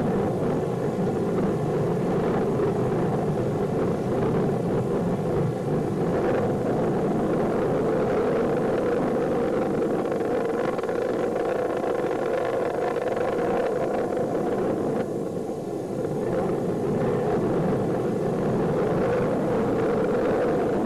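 Steady rumbling roar from an exploded Titan 34D rocket as its burning debris falls, dipping briefly about fifteen seconds in.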